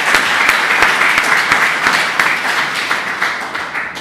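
Audience applauding: a dense patter of many hands clapping, tapering off near the end.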